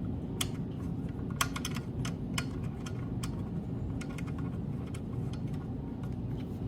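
Irregular light clicks and taps of small metal hardware as the screw holding the CNC pendant on its mounting arm is driven in, over a steady low hum.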